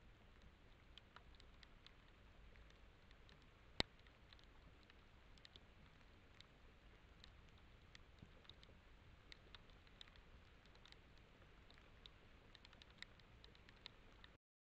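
Near silence: the faint hiss of a trail camera's microphone at night, with scattered faint ticks and one sharper click about four seconds in. The sound cuts out just before the end.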